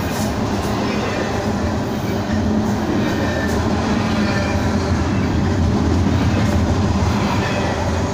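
Double-stack intermodal container train rolling past close by: a steady, loud rumble of the well cars' wheels on the rails.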